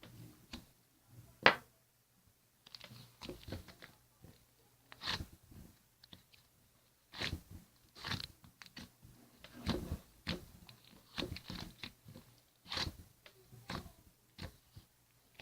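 Irregular close-up crunches and clicks, a sharp click about a second and a half in being the loudest, followed by a dozen or so softer crunching strokes at uneven intervals.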